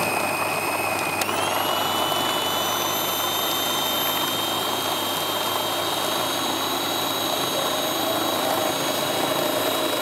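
Bosch food processor motor running steadily, chopping frozen banana pieces into banana ice cream. Its whine jumps up in pitch about a second in, then holds steady.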